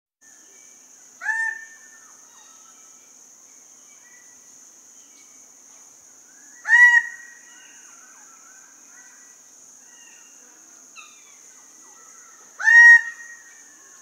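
Emperor bird-of-paradise giving close display calls: three loud, harsh calls about five and a half seconds apart, each sweeping up in pitch at its start. Fainter bird calls sound in between, over a steady high hiss.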